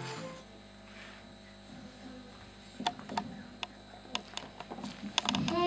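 Music cuts off at the start, then a quiet room with a faint hum and a scattered handful of sharp clicks and knocks from a handheld microphone being carried and handled.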